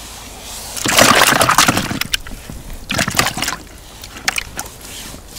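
Water splashing and sloshing in two bursts, the bigger about a second in and another around three seconds, as a freshly caught large perch is handled in a small boat.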